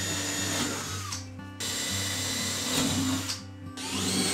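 Electric drill motor whining and winding down about a second in, then spinning up again near the end, over steady background music.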